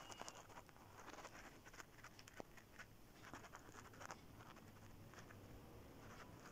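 Near silence, with faint scattered taps and scratches as a hand handles a thin rolled-out dough sheet on a stone worktop.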